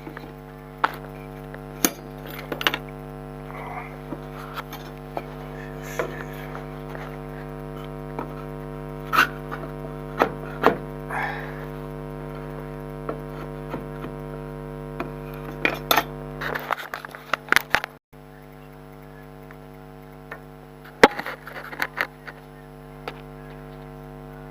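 Scattered metal clicks and knocks as a new anti-roll bar link is levered and pushed into its mounting hole with a hammer handle. A steady electrical hum sounds underneath.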